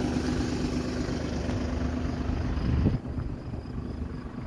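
Tractor engine idling steadily, a low even hum. About three seconds in there is a brief low rumble, and after it the sound is quieter.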